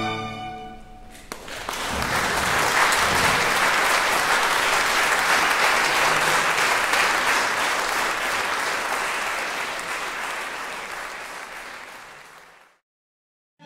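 A string orchestra's held final chord ends about a second in, and a concert audience bursts into applause, which fades out near the end.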